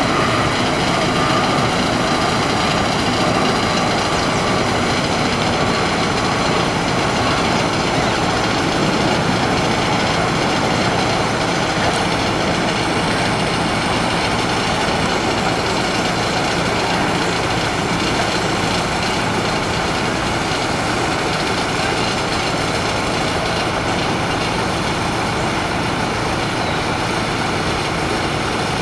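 A train running on the nearby tracks: a steady, even rumble that holds level throughout.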